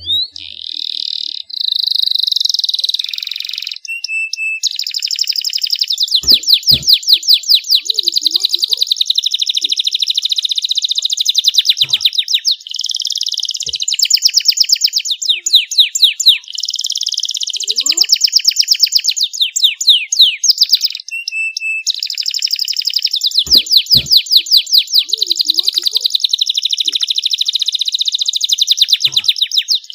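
Canary singing a long, loud song of rapid trills and rolls of quickly repeated notes, broken only by a few short pauses.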